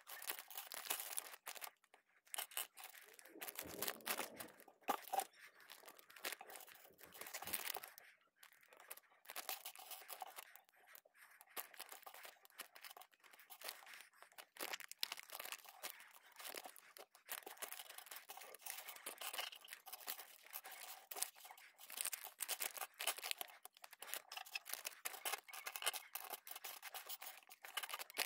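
Small plastic building bricks being handled and pressed together, giving a steady run of little clicks and rustles, mixed with the crinkle of thin plastic parts bags.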